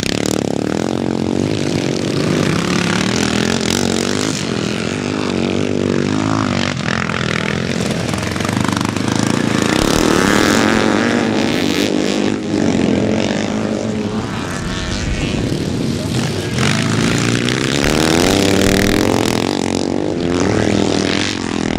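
Several classic motocross bikes racing, their engine notes rising and falling over and over as they rev and back off.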